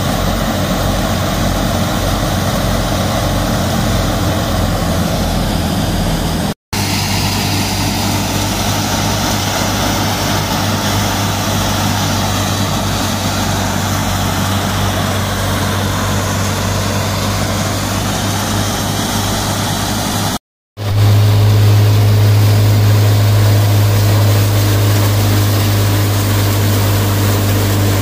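A 55 hp Kubota MU5501 diesel tractor running under load, driving a PUNNI multi-crop thresher through its power take-off, with the engine and the threshing machinery making a steady drone over a low hum. The sound cuts out briefly twice, about a quarter of the way in and about three-quarters of the way in. The last part is louder, with a stronger low hum.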